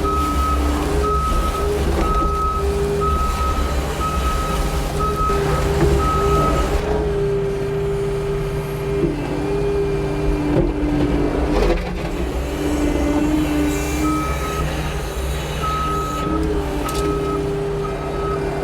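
New Holland L318 skid steer's diesel engine running steadily while the machine works. Its reversing alarm beeps about once a second for the first six seconds, stops, and comes back for a few seconds near the end as it backs up again.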